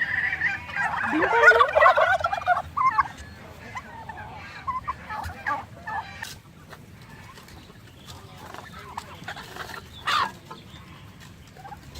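Turkeys gobbling: a loud, rapid warbling gobble in the first few seconds, then fainter scattered calls, with one sharper call about ten seconds in.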